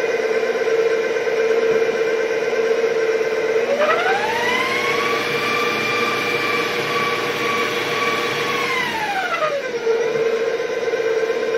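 Electric stand mixer running with its wire whip beating sponge-cake batter: a steady motor whine. From about four seconds in, a second whine rises in pitch, holds for about five seconds, then falls away again while the mixer hum carries on.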